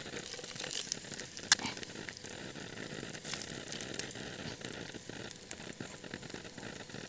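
Eggs frying in a nonstick pan over a small gas canister stove: an even, soft sizzle with scattered crackles and a few sharper pops. The stove is sputtering, turned down so low that its flame won't burn steadily.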